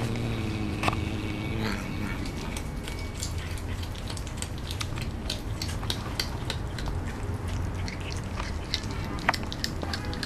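Sphynx cat eating meat with repeated wet chewing and biting clicks, thickest in the second half. In the first two seconds the cat makes a low pitched hum.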